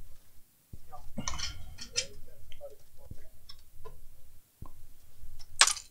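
Hands handling laptop parts on a workbench: scattered clicks, taps and knocks of plastic casing being moved, with one sharp, loud click near the end.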